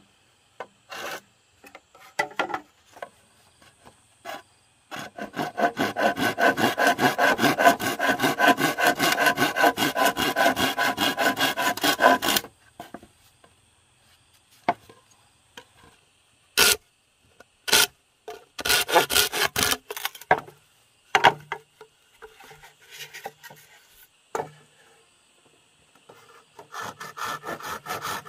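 A hand tool rubbing rapidly back and forth on wood or bamboo. It goes in one long run of about seven seconds in the first half, then shorter runs later, with scattered single knocks between.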